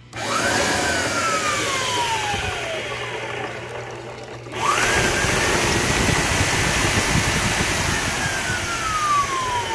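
Electric motor of a power tool with a newly replaced switch, switched on twice. A short run spins up and winds straight down. The second run, about four and a half seconds in, holds a steady whine for about three seconds before winding down again.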